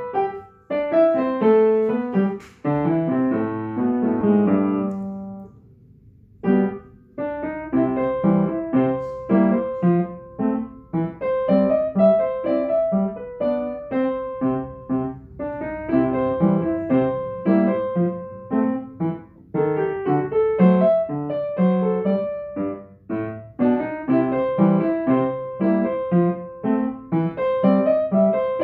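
An acoustic upright piano played solo: quick runs of notes, a few held chords left to ring and die away, then a short pause about six seconds in before the playing picks up again and carries on at a brisk pace.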